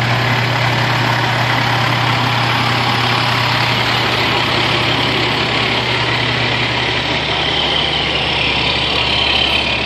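Fire engine's diesel engine idling as the truck creeps past at close range: a loud, steady deep hum that shifts lower about seven seconds in.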